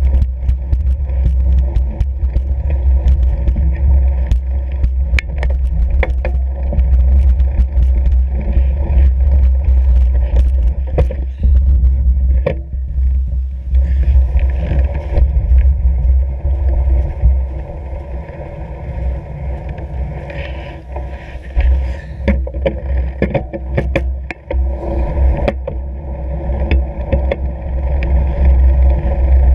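Riding a fat bike over snow: a steady loud rumble of wind buffeting and tyre noise on the bike-mounted camera's microphone, with scattered clicks and crunches from the tyres and bike. It eases off for a few seconds past the middle.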